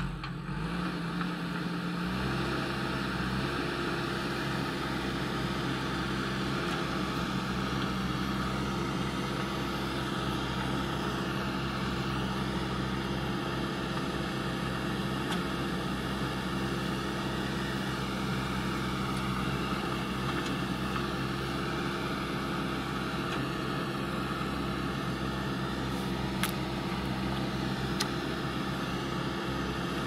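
JCB backhoe loader's diesel engine running steadily, its note stepping up slightly about two seconds in and then holding even. Two short sharp clicks sound near the end.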